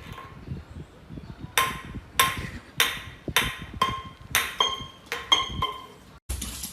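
A series of about nine sharp knocks, roughly half a second apart, each leaving a short clear ringing tone, as from a hard object striking glass or metal. Near the end they stop, and a denser, noisier sound begins.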